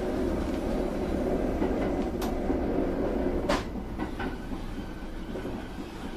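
Kintetsu Urban Liner Plus electric express train running at speed, heard from inside the driver's cab: a steady low rumble of wheels on rail, with two sharp clicks about two and three and a half seconds in.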